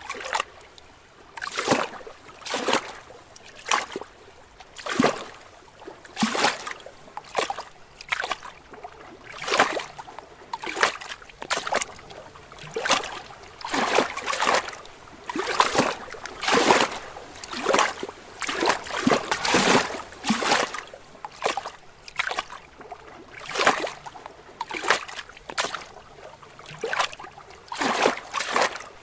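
Small lake waves lapping against rocks, splashing unevenly about once a second, some laps louder than others.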